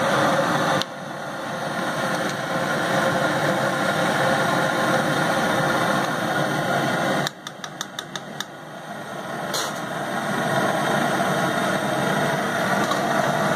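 Steady rushing roar of a cooking stove burner under a karahi of simmering curry. The roar dips suddenly twice and swells back. Midway comes a quick run of about six sharp ticks from a metal spatula against the pan.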